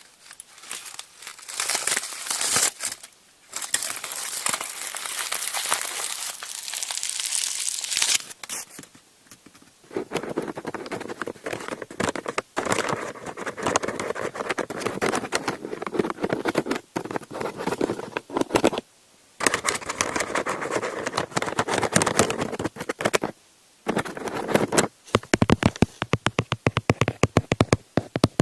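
A crinkly sheet of wrap is crumpled and rustled close to the microphone, giving a dense, crackling crinkle. Near the end it gives way to quick, even tapping, several taps a second.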